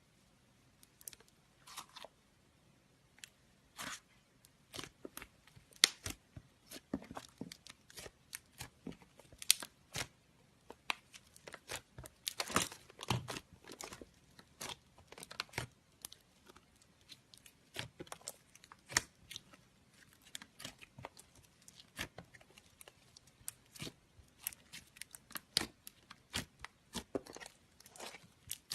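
Slime being squeezed and worked by hand close to the microphone, giving an irregular run of sticky pops and crackles that starts about a second in.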